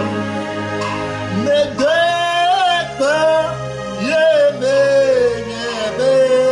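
A man singing slowly, holding long notes with a wavering pitch, over instrumental accompaniment.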